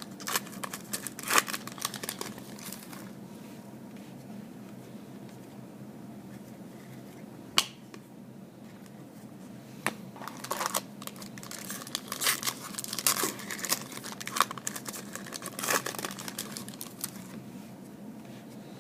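Foil wrappers of trading-card packs crinkling and tearing in bursts as packs are opened, with one sharp click about seven and a half seconds in.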